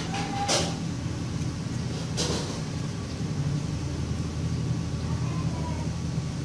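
A steady low mechanical hum, like a running engine, with two short sharp noises, one about half a second in and one about two seconds in.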